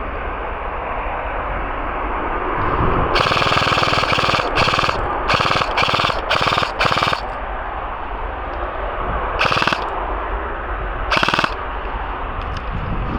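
Airsoft electric gun firing full-auto bursts. There is one longer burst of over a second about three seconds in, then a quick string of five short bursts, and two more short bursts later on.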